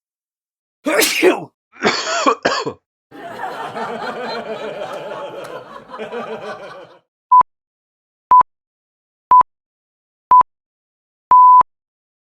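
A run of short meme sound effects: two brief throaty sounds like a cough, a noisy stretch of about four seconds, then a countdown of four short high beeps a second apart ending in one longer beep.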